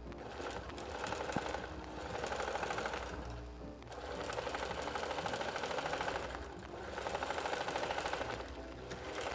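Electric household sewing machine stitching a seam, in about four runs of a couple of seconds each with short pauses between.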